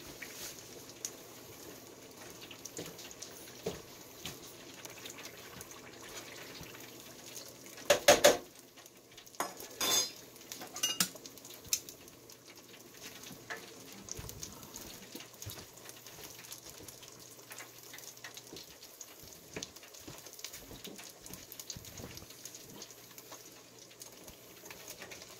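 Battered striped bass frying in hot oil in an electric deep fryer, a steady faint sizzle. Loud clatters of metal tongs against the fryer basket come about eight and ten seconds in, with a few lighter knocks after.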